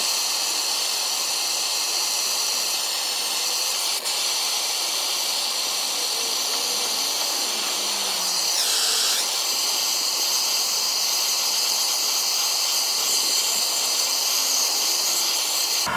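MAPP gas hand torch burning with a steady hiss, heating a seized bolt on a brake caliper to free it. The flame's tone shifts briefly about nine seconds in and cuts off at the end.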